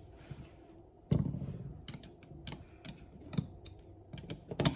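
Scattered metal clicks and taps of a flathead screwdriver working at the cylinder of a brass-framed 1851 Navy Pietta black powder revolver, prying at a piece that won't sit right. A louder knock comes about a second in, and a quick run of clicks near the end.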